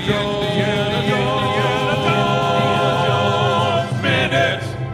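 A sung podcast theme song: several voices singing together in harmony, holding long notes, then a final phrase that stops abruptly near the end.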